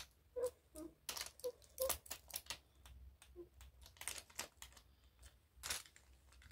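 Wooden toy train cars being handled on a wooden track: irregular light clicks and clacks as the cars knock together and couple up.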